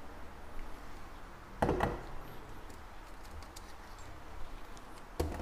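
A few short knocks and clatters from handling kitchen utensils and the camera, one about a second and a half in and another near the end, with faint light ticks between.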